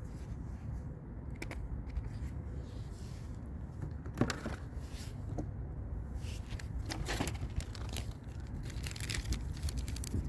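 Plastic packaging crinkling and rustling in short scattered bursts as small parts are handled, over a steady low rumble of wind on the microphone.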